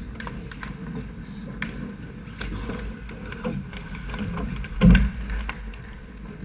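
Ice hockey play heard from a camera mounted on the goal: skates scraping the ice and sticks clicking and clacking, with a heavy thump about five seconds in.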